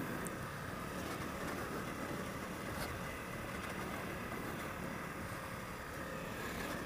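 Honda CRF250L's single-cylinder engine running steadily under way as the dual-sport motorcycle rides along a dirt trail, at an even, moderate level.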